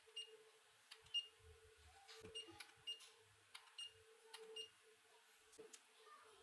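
Faint, irregular sharp clicks and ticks, some with a brief high ping, over a faint steady hum.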